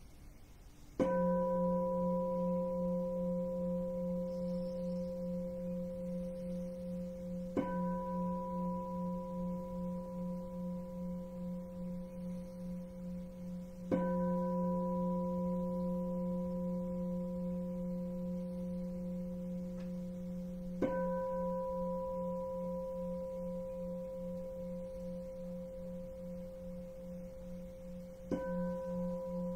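Standing bowl bell struck with a wooden striker five times, about every seven seconds. Each stroke rings on with a low, slowly pulsing hum and higher overtones that fade gradually and are still sounding when the next stroke lands.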